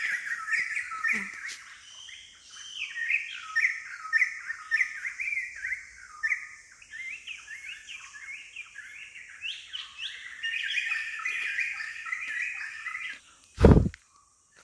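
Forest birds singing: a dense chorus of quick, repeated chirping notes, over a steady high hiss. A single loud thump near the end.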